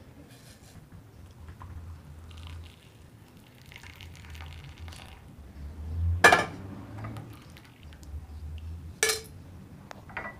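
Hot chai being poured from a steel saucepan through a plastic tea strainer into a ceramic cup, with dishware knocks: a loud one about six seconds in and a sharper clink about nine seconds in.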